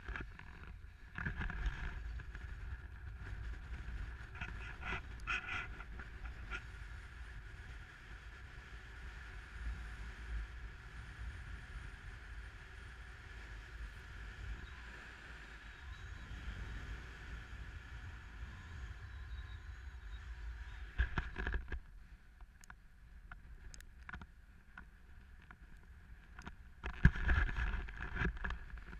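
Wind buffeting a GoPro camera's microphone during a run down a snowy slope, a steady low rumble with the hiss of snow sliding beneath the rider. It gets louder in bursts about two-thirds of the way in and again near the end.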